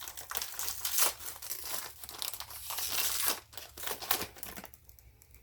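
Plastic wrapping being torn open and crinkled off a disposable camera by hand: dense, irregular crackling and rustling that dies away about a second before the end.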